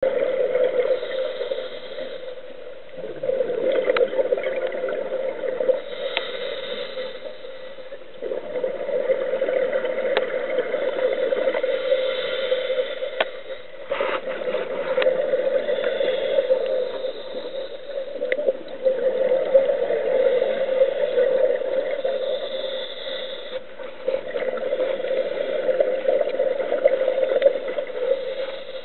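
Scuba diver's breathing heard underwater: bursts of bubbles from the regulator exhaust that swell and fade every few seconds, with scattered sharp clicks.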